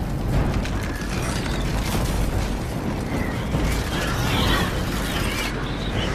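Film sound design of ice freezing over: dense crackling and creaking over a low rumble.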